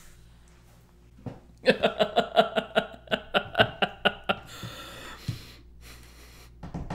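A woman laughing: a quick run of short ha-ha pulses, about six a second, starting near two seconds in and lasting about two and a half seconds, followed by a breathy intake of breath.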